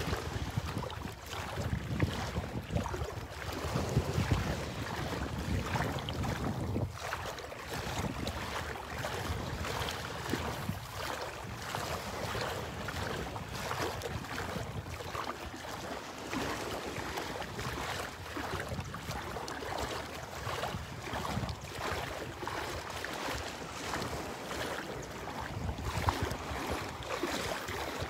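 Shallow seawater sloshing and splashing around legs as someone wades through it, with wind buffeting the microphone in low gusts.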